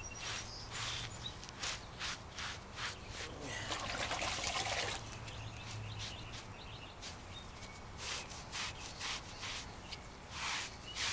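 Wet sponge scrubbing over man-made stone and fresh cement joints in short repeated swishes, about two a second, with a longer continuous rub about four seconds in: the cement film being washed off the patched step.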